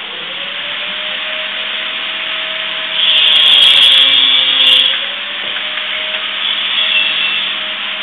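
An electric power tool, such as a sander or grinder, running on a workpiece, its motor note sagging and recovering as it is pressed into the work and louder for a couple of seconds in the middle.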